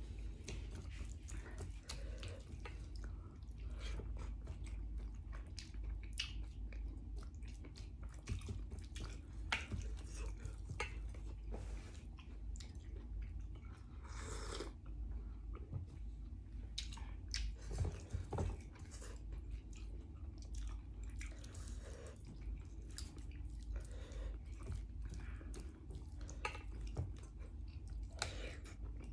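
A person chewing food close to the microphone: irregular wet smacks and clicks, over a steady low hum.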